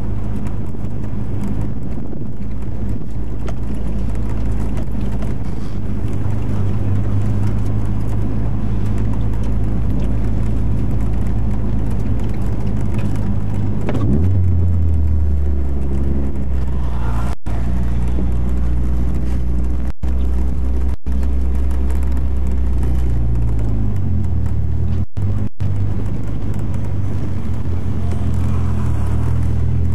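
Car engine running at low speed, heard from inside the cabin as a steady low drone. Its pitch changes about 14 seconds in and again around 24 seconds. The recording cuts out for split seconds several times in the second half.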